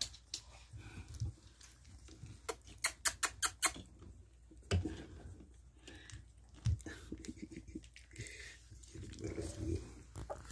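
Three-week-old bully puppies shuffling and pattering about on a blanket, with a quick run of sharp clicks about three seconds in and a few faint whimpers near the end.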